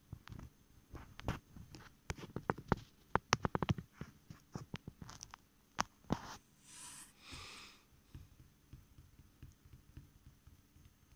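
Irregular light clicks and taps, with a quick run of them about three seconds in, then two short hissing rustles just past the middle, followed by a few faint clicks.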